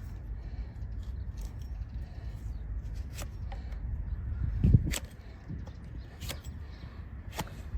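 Donkey hoof being trimmed: a few sharp snapping clicks from the cutting tool over a steady low rumble, with one heavy thump a little past the middle.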